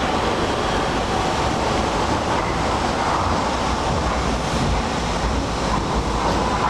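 IVA metro train running out of an underground station toward the tunnel: a steady, unbroken noise of wheels on rail and running gear, with no single knock or squeal standing out.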